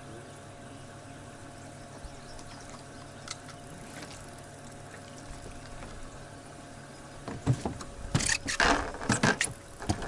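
A steady motor hum from the boat, then, about seven seconds in, about three seconds of loud, irregular knocks and clatter as someone moves about on the boat deck close by.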